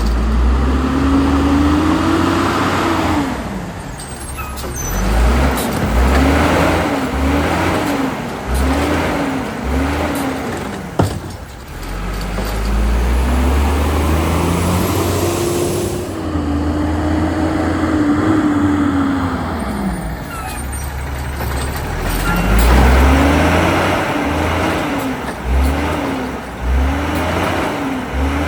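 Autocar WX automated side-loader refuse truck's engine revving up and falling back again and again, some revs long and some in quick short bursts, with a sharp air release about eleven seconds in.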